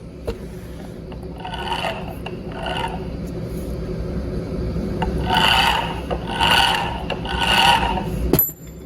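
Rail drilling machine running with a steady low hum, broken by five short rasping bursts. A sharp click comes near the end, when the sound drops.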